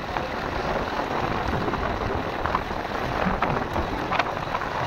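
Motorcycle riding along a loose gravel road: a steady rough rush of tyres on stones, with scattered sharp clicks.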